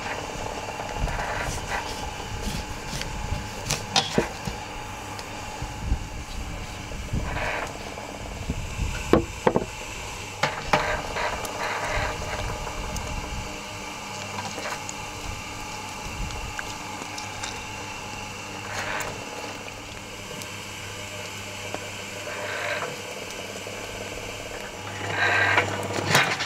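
Knife work on lemons at a table: scattered sharp clicks and knocks, a cluster of them about nine to ten seconds in, over a steady low mechanical hum.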